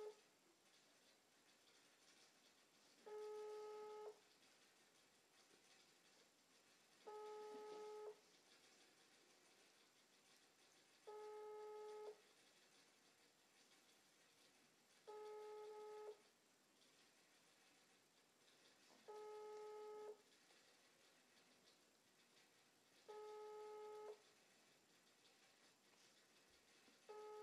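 Ringback tone of an outgoing phone call played through a phone's speaker: a steady tone about a second long, repeating every four seconds, seven times. The called number is ringing and has not yet been answered.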